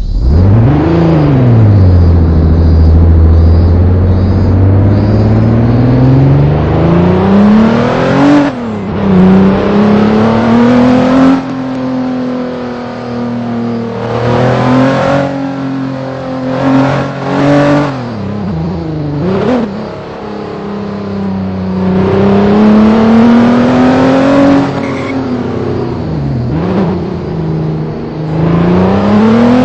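Vehicle engine being driven, its pitch climbing under acceleration and dropping back several times as it shifts through the gears.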